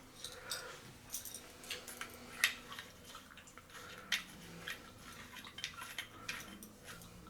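Faint, irregular clicks and light metallic clinks of small lightsaber hilt parts and metal shims being handled and fitted together, the sharpest about two and a half seconds and four seconds in.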